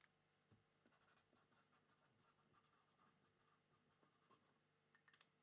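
Faint scratching of a pen writing on a paper card in short strokes, against near silence.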